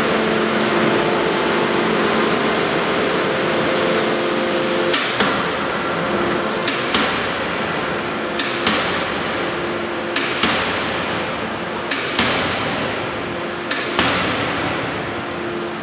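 Anyang C86Y-450KJ fully hydraulic closed-die forging hammer striking hot metal in a die: from about five seconds in, six heavy blows about 1.7 seconds apart, each with a short click just before it and a ringing tail. A steady machine hum runs underneath.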